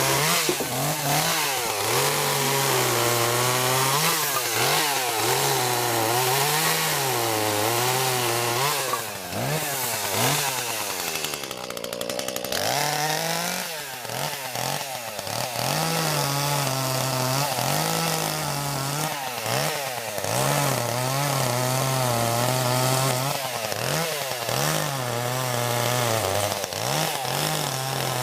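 Two-stroke chainsaw running under load while cutting wood, its engine pitch wavering up and down through the cut. About midway it eases off briefly, then climbs back up.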